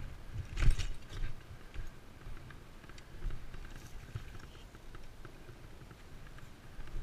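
Scattered knocks, clicks and rustling, with one louder thump about two-thirds of a second in.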